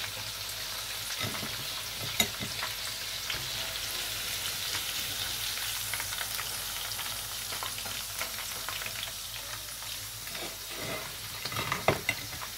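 Chicken pakora pieces deep-frying in a pan of hot oil: a steady sizzle with fine crackling. A few sharp clicks stand out, one about two seconds in and several near the end.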